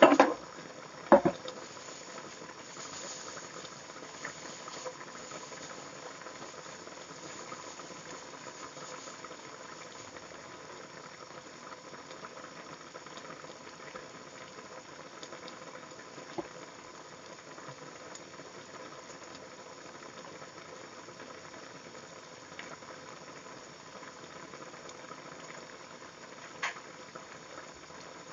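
Chicken giblet and chayote soup bubbling at a full, vigorous boil in a pot, a steady bubbling hiss. Two sharp knocks in the first second and a half are the loudest sounds, with a few faint ticks later.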